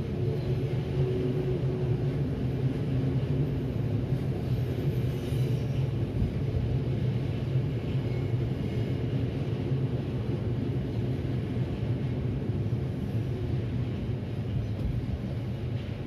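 Steady low rumble of an Odakyu Odawara Line electric train running past at the level crossing.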